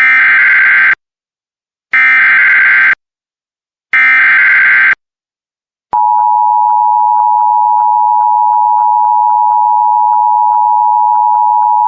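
Emergency Alert System SAME digital data signal: three one-second bursts of shrill warbling data tones, a second apart. About six seconds in, a steady single-pitch alarm tone starts: the NOAA Weather Radio 1050 Hz warning alert tone.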